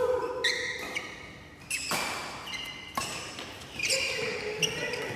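Badminton rally: sharp racket strikes on the shuttlecock about once a second, with shoes squeaking on the court between hits.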